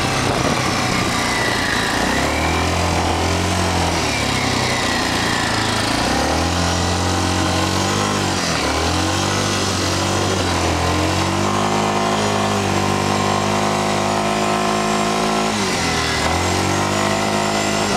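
Yamaha Grizzly 350 ATV's single-cylinder four-stroke engine running while under way. Its pitch holds steady for stretches and briefly drops and climbs again with the throttle, about eight and a half seconds in, near ten and a half seconds, and again near the end.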